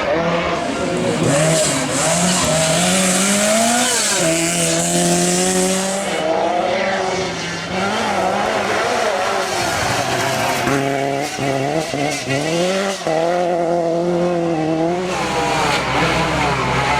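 Lancia 037 Group B rally car's supercharged four-cylinder engine revving hard, climbing in pitch and dropping sharply at each gear change, several times over. Tyres are skidding and hissing under it for the first few seconds.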